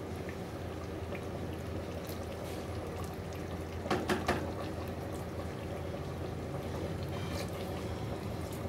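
Chicken curry simmering in an aluminium pressure cooker on a gas burner as a wooden spatula stirs it, with a couple of scrapes against the pot about four seconds in. Near the end, water is poured in from a plastic jug.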